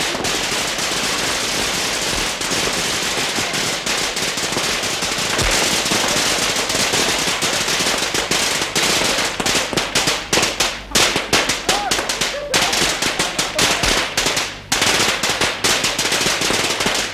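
A string of Chinese firecrackers going off in a long, fast, dense crackle of bangs. From about halfway through, the cracks come more spread out as separate loud pops.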